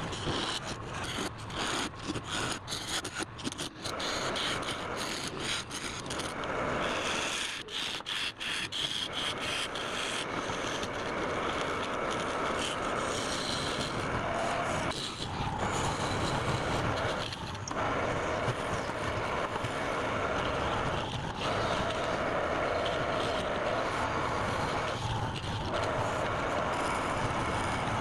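Wood lathe running with a turning tool scraping against the spinning wood. In the first ten seconds the tool contact breaks off many times in quick succession, then the cut runs steadily with a few short breaks.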